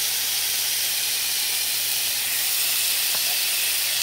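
Marinated beef short ribs sizzling steadily on a hot George Foreman grill plate, with one light click about three seconds in.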